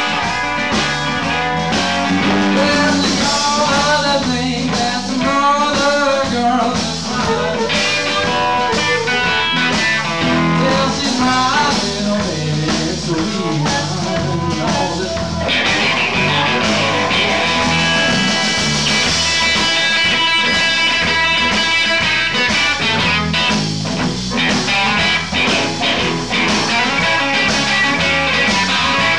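Live blues-rock band playing: electric guitar, electric bass and drum kit, with a harmonica in the band near the end.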